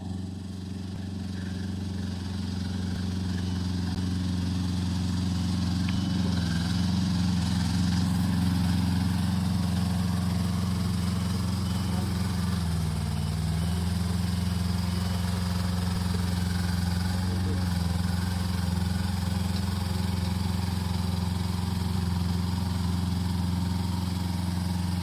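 A large engine running steadily, with its pitch dipping briefly a couple of times, as if under changing load.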